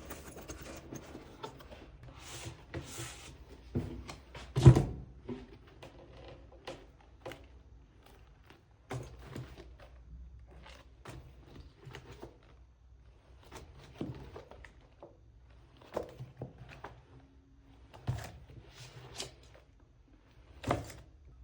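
Items from a box being handled and set down in a small room: scattered knocks and thunks, the loudest about five seconds in, with a brief rustle of packaging near the start.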